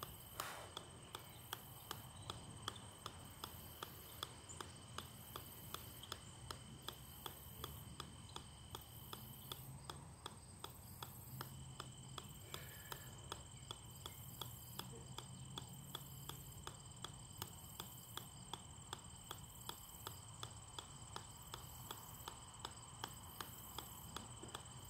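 A golf ball bouncing again and again on the steel head of an 8-pound sledgehammer: an even run of sharp clicks, about two and a half a second.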